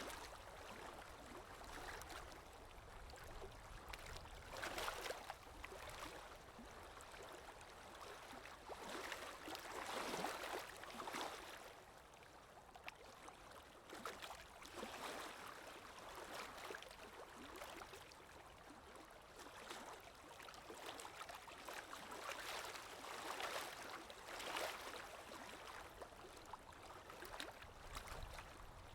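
Lake Erie waves washing onto the shore, each wave a hiss that swells and fades, about every four to five seconds.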